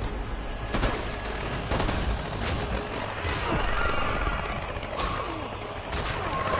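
Film battle soundtrack: scattered bursts of gunfire and impacts with a music score underneath.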